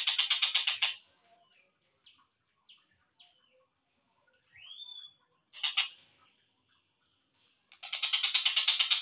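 Collared kingfisher calls from a slowed-down training recording: a rapid, harsh chattering rattle at the start, then scattered short calls and a single rising whistle. A sharp call follows at about the middle, and the rapid chattering starts again near the end.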